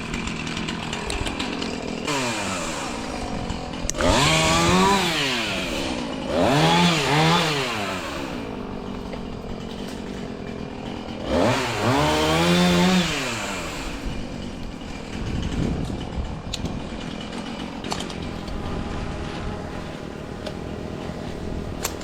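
Milwaukee battery-powered top-handle chainsaw run up in three bursts, its motor whine rising and then falling in pitch each time, the last one longest.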